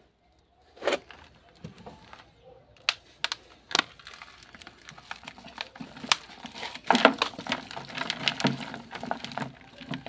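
Handling noise from a flamboyant seedling's soil root ball being worked by hand for planting: a few sharp clicks and crackles, then a dense stretch of crinkling and crackling from about six to nine and a half seconds in.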